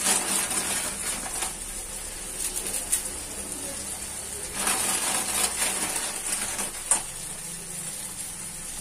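Onion-tomato masala sizzling steadily in a kadhai, while a plastic Maggi noodle packet rustles and dry noodle cakes are broken and dropped into the pan. The rustling is busiest about a second in and again midway, with one sharp click just before seven seconds in.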